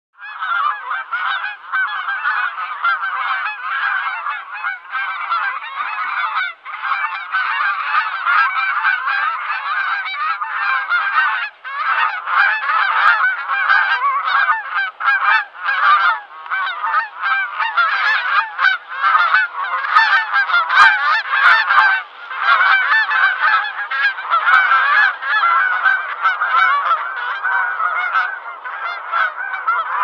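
A flock of geese honking continuously, many calls overlapping into a dense chorus.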